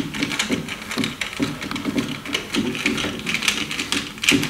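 Rapid, irregular clicking and scraping of a small screwdriver turning out T8 Torx screws from a car's rear-view mirror mount.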